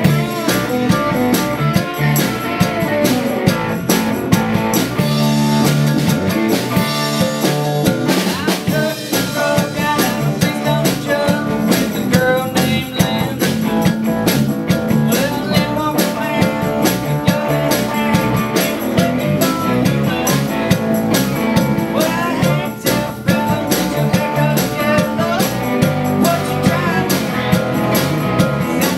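Live country-rock band playing: strummed acoustic guitar, electric guitars, electric bass and drum kit, with a tambourine and singing.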